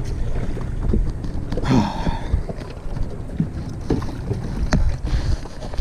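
Wind buffeting the microphone aboard a small jon boat under way, with a steady low rumble, a brief rushing surge about two seconds in and a few light knocks near the end.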